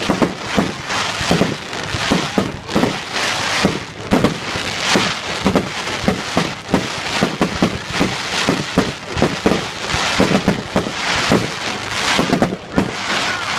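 Fireworks going off in a rapid, continuous barrage of bangs and crackles, several a second.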